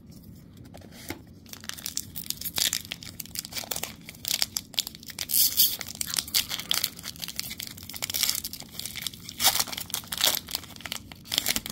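A Magic: The Gathering Mystery Booster pack's foil wrapper being torn open and crinkled by hand: a long run of sharp rips and crackles, with louder tears now and then.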